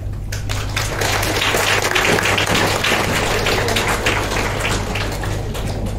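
Audience applauding with many hands clapping, swelling about a second in and thinning out near the end.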